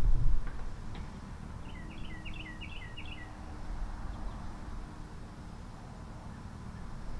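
A songbird singing one quick phrase of about six rapidly repeated two-part notes, lasting about a second and a half, over a steady low outdoor rumble.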